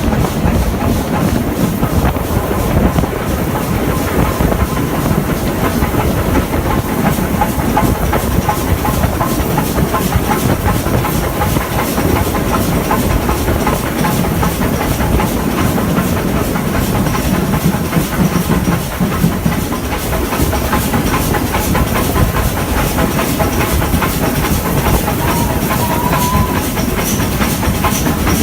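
Stanier 8F 2-8-0 steam locomotive running along the line, steady and loud, with a fast, even run of beats over noise.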